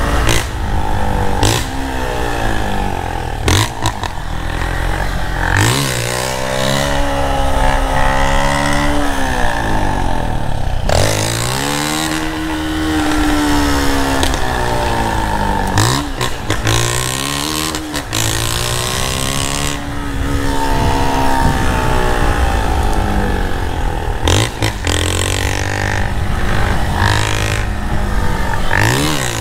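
Motorcycle engine with a gutted (de-baffled) muffler, heard from the rider's seat, revving up and easing off several times as the bike accelerates and slows. Wind rushes over the microphone underneath.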